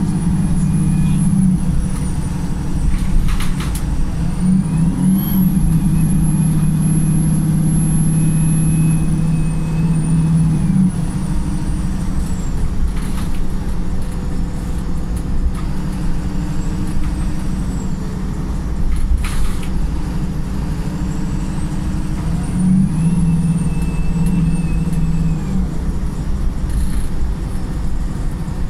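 Wright Pulsar single-deck bus engine running under way, pulling hard three times (for the first second or so, from about 4.5 to 11 seconds, and again around 23 to 25 seconds) with a high whine that rises, holds and falls with each pull. A few sharp clunks or hisses come in between. The bus is running in limp mode.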